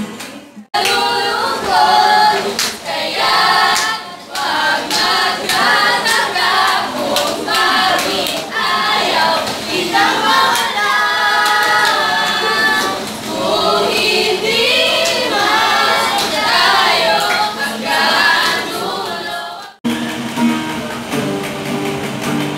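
A small group of young voices singing a song together without instruments. Near the end, after a sudden cut, an acoustic guitar strums chords.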